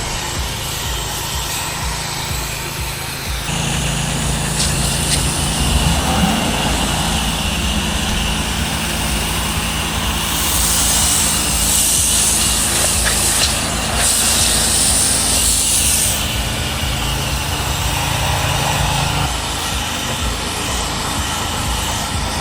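Pressure washer's gas engine running steadily, with the hiss of water spray that is loudest about ten to sixteen seconds in.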